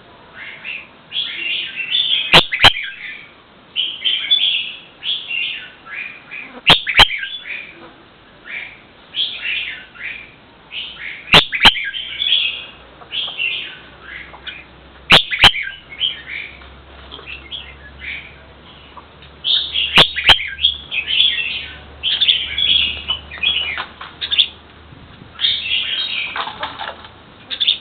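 A bird chirping in short, quick high calls throughout, broken by a sharp double click about every four to five seconds.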